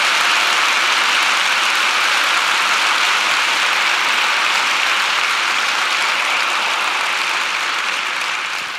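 Large theatre audience applauding, a steady wash of clapping that dies away near the end.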